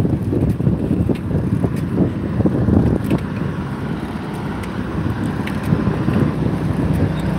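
Wind buffeting a phone microphone on a moving bicycle: an uneven low rumble, with scattered light clicks and rattles from the bike.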